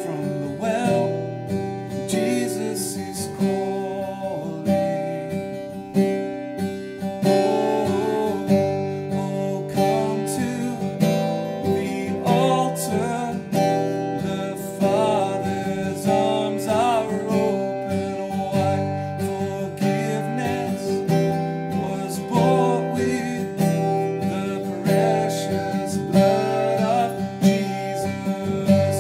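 A man singing a worship song while strumming an acoustic guitar.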